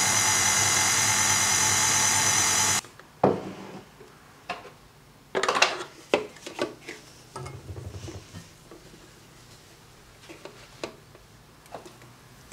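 KitchenAid Artisan stand mixer running with its wire whisk in crepe batter, a steady whir that cuts off suddenly about three seconds in. After it come scattered knocks and clinks as the steel mixing bowl and a plastic funnel and bottle are handled.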